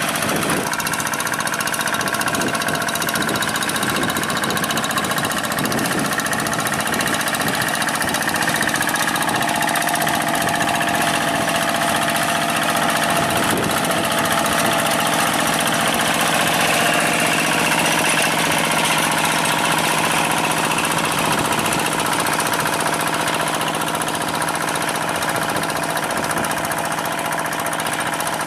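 Old single-cylinder diesel engine of a two-wheel hand tractor running steadily under load as it drags its cage wheels through flooded paddy mud.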